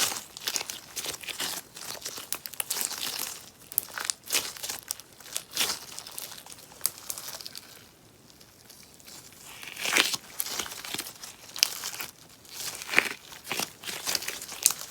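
Crackly beeswax sponge slime giving dense, irregular crackling and popping, thinning out a little after halfway and then returning with a few louder pops.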